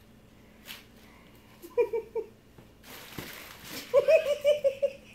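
Plastic bubble wrap crinkling and rustling as a kitten tumbles in it and bats at it, loudest for about a second near the middle. A person giggles in short, high-pitched bursts: three around two seconds in, then a quick run of them near the end.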